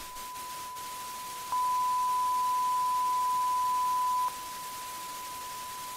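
Steady TV test-pattern tone, a single unwavering beep, over a hiss of TV static. The tone gets louder about a second and a half in and drops back about four seconds in.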